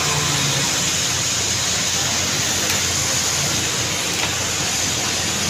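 Steady rushing hiss of water on a flooded road, with cars and motorbikes driving and splashing through it.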